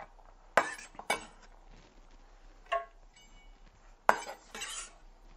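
A few separate knocks and scrapes of a kitchen knife on a wooden cutting board, the loudest about four seconds in and followed by a short scrape, with a light clink in between.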